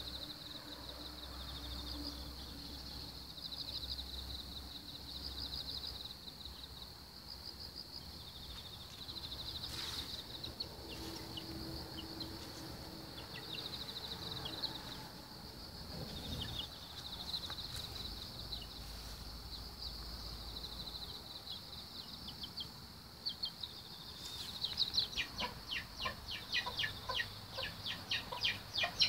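Insects chirping in a steady, high, pulsing trill. About five seconds before the end, young chickens start peeping loudly in a quick run of short falling notes.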